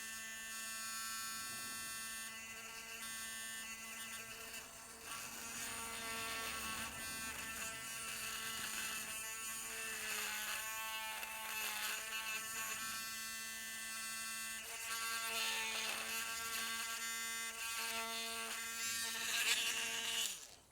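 Small Dremel rotary tool running with a steady high buzz while drilling into the hard plastic of a vintage action figure's broken crotch, its pitch wavering now and then as the bit bites. It cuts off just before the end.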